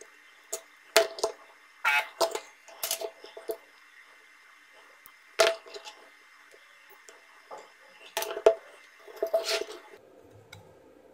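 Irregular clicks and light knocks with a short ring from circuit boards, a soldering iron and multimeter probes being handled on a workbench while a small diode is desoldered and checked.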